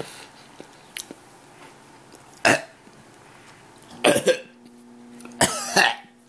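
A man gagging in his throat as he forces himself to swallow a bite of cold Chinese-style sausage he finds revolting: three short, loud retching noises, about 2.5, 4 and 5.5 seconds in. A faint steady hum comes in about four seconds in.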